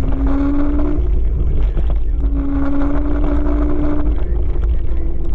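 Wind buffeting the microphone of a camera riding on a moving Kaabo Wolf King GT electric scooter: a heavy, steady low rumble. A pitched hum rises slightly in pitch and comes and goes twice, about a second in and again about two seconds later.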